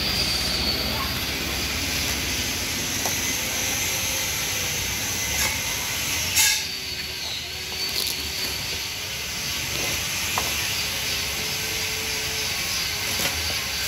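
Occasional sharp clicks and taps of upholstery pincers and hand tools working on a wooden sofa frame over a steady background hiss; the loudest click comes about six seconds in.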